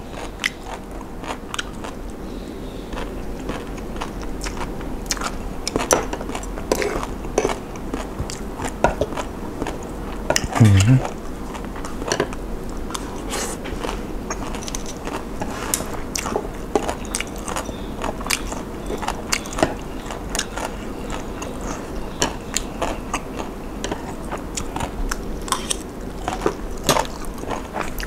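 Close-up eating of a spicy Thai papaya salad tray with seafood: steady chewing with many small crunches and wet clicks of the mouth. One short falling vocal sound, like an appreciative hum, about eleven seconds in.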